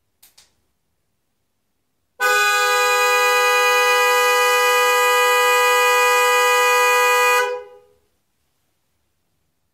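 Car horn sounding one steady blast of about five seconds, two tones together, coming in through an open window and registering 95.5 dB peak on a meter at the window. A faint click just before it.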